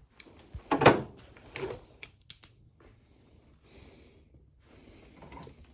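Handling at a front-loading washer's drain filter: a few clicks and knocks, the loudest about a second in, then quieter rustling.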